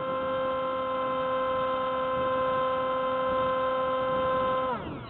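Hubsan SpyHawk RC plane's electric motor and propeller heard from the onboard camera, a steady high-pitched whine under power that winds down sharply, falling in pitch, near the end as the throttle is pulled back.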